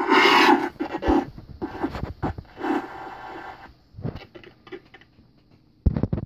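A DIY voice-changer circuit board's speaker gives a loud, buzzy, electronic burst in the first second, with a shorter stretch of it again about midway. Between and after come scratches, scrapes and sharp clicks as hands handle the board: the handling is picked up by its microphone and played through the speaker.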